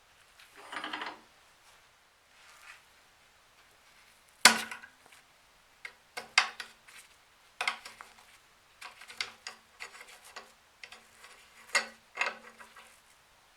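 Metal parts of an old blowtorch being handled: a brief scrape, then a sharp metal knock and a run of irregular clinks and taps, many leaving a short ring at one steady pitch.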